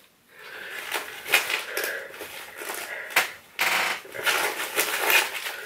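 Cotton tote bag and the items inside it being rummaged and handled: irregular rustling with a few sharp clicks, the sharpest a little after three seconds in.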